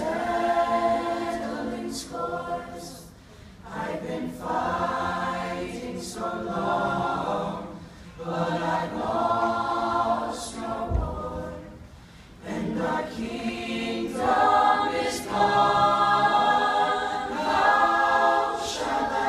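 Mixed-voice a cappella group singing in close harmony, held chords in phrases of a few seconds with short breaks between them.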